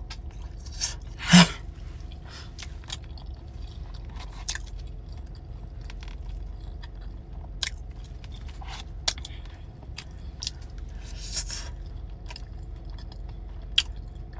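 Close-up chewing and eating sounds with scattered small clicks and scrapes, over a low steady hum. One sharper, louder click comes about a second and a half in.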